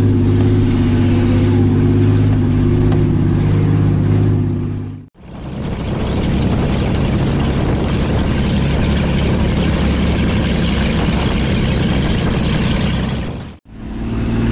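Off-road 4x4's engine running steadily while driving a dirt track, heard in the open, roll-caged cab. About five seconds in it cuts to a rushing of wind and tyres on the gravel track with the engine fainter, and about a second before the end it cuts back to the steady engine.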